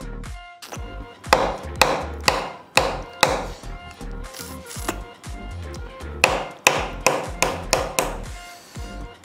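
Mutton marrow bone being knocked repeatedly against the banana leaf on the table to shake the marrow out. There are two runs of sharp knocks about two a second, the first beginning about a second in and the second a little past six seconds. Background music with a steady beat plays underneath.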